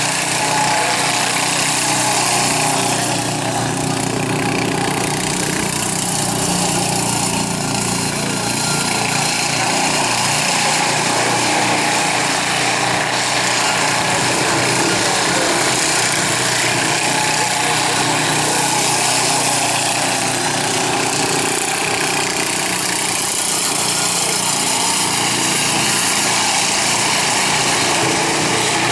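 Racing lawn mower's small engine running hard as the mower laps a dirt track; a steady, continuous engine drone.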